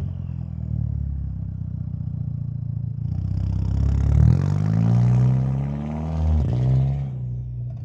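Volkswagen Golf GTI's turbocharged four-cylinder idling steadily through an exhaust with the rear muffler removed and split into two tailpipes. Partway through, the revs climb as the car pulls away, drop at an upshift, and climb again, fading as it drives off.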